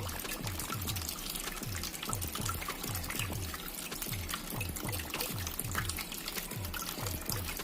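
Water trickling and splashing down a small terracotta-pot waterfall fountain, with background music that has a steady beat.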